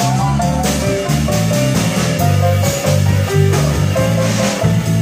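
Piano trio playing live: grand piano, electric bass guitar and drum kit together, a moving bass line under piano notes, with regular cymbal strikes.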